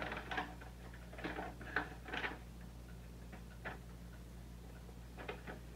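Folded paper instruction manual being unfolded and handled: a handful of short paper rustles and crinkles, with a faint low steady hum underneath.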